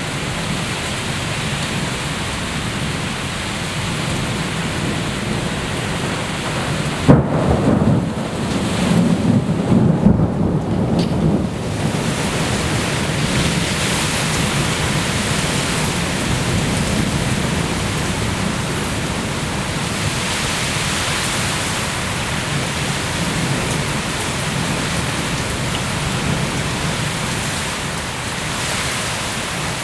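Steady rain falling, with a sudden sharp thunderclap about seven seconds in, followed by about five seconds of low rumbling thunder.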